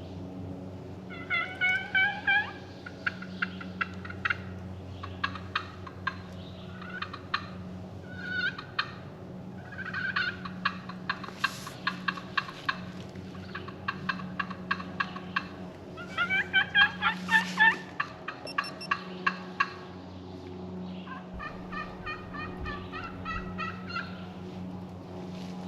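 Turkey yelping and clucking: several series of short, repeated notes, some runs quick and rapid, coming back and forth between a hen and the calling.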